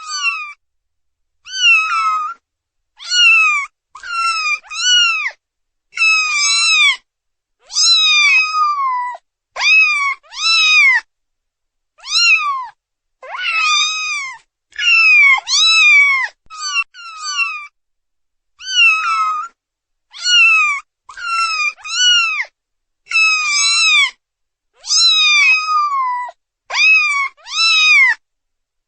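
Kittens meowing for their mother: a long run of short, high-pitched meows, each rising then falling, mostly in quick pairs or threes with short pauses between.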